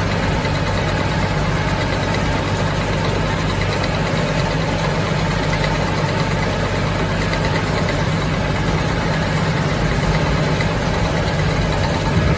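Farm tractor engine running steadily while baling hay, a constant low hum under a broad mechanical din.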